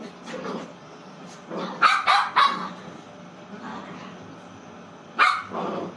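A dog barking, with a quick run of three loud barks about two seconds in and another bark near the end.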